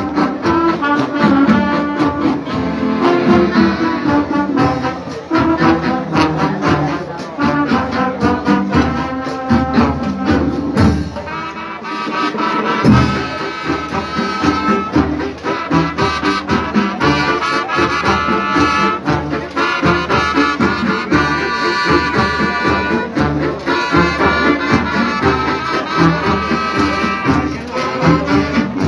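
Marching band playing a lively tune, brass over a steady drum beat.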